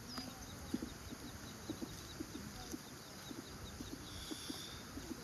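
Birds calling outdoors: a run of short, low notes repeated irregularly, with faint high chirps over them.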